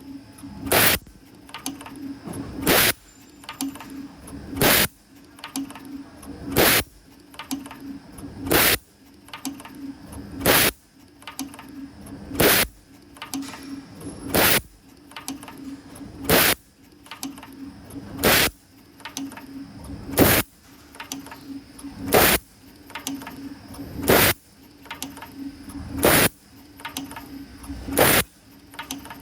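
CNC camless spring forming machine running through its cycle on 0.7 mm wire clip springs. A steady hum is broken by a sharp clack about every two seconds, a regular beat of one clack per cycle.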